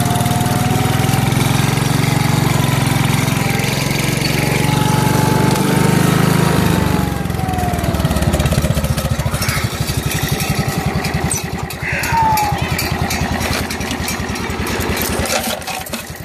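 Wheel Horse lawn tractor engine running as the tractor is driven, with a thin whine that rises and then falls in pitch. About seven seconds in the engine slows to a lower, uneven run where the single firing beats can be heard, and it eases off near the end.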